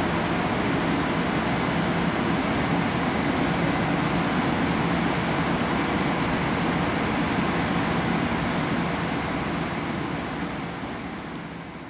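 Steady rumble of a Long Island Rail Road electric train running away from the platform, fading out near the end.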